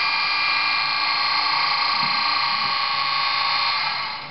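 Class 20 diesel engine sound from a Bachmann OO gauge model's DCC sound decoder: a steady, tinny hum with many high tones over a hiss, fading away near the end.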